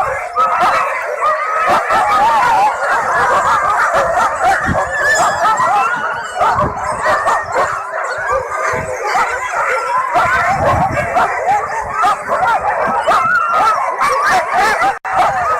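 A pack of sled huskies yelping, whining and howling together, many overlapping calls at once without a pause. The sound drops out for an instant near the end.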